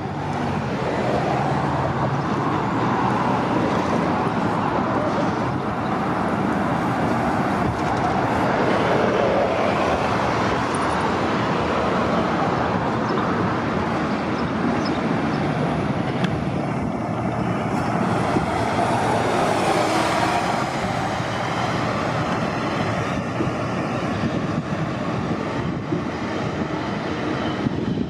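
City transit buses running as they pull in and out of a bus terminal, a steady engine and traffic noise that swells twice as buses pass close by.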